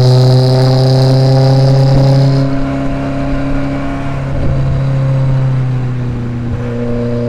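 Renault Spider's mid-mounted 2.0-litre four-cylinder engine running under way, heard close up with its engine lid off. It pulls steadily and loudly, then about two and a half seconds in it goes quieter, and its pitch slowly sinks.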